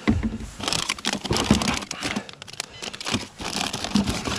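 Plastic bait packets crinkling and rustling as a hand rummages through a boat's deck storage hatch, with irregular clicks and knocks and a heavier knock at the start as the hatch lid is lifted.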